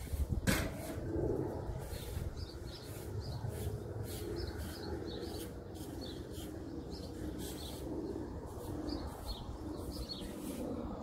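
Small birds chirping in short repeated twitters, with a dove cooing softly in the background over a steady low rumble. A sharp knock about half a second in.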